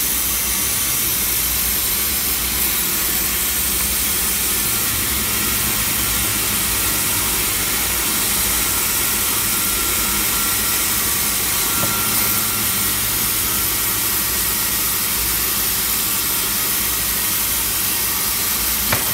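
Vertical bandsaw resawing a hardwood board as it is fed through: a steady, loud run of high hiss over a low rumble, with one sharp click near the end.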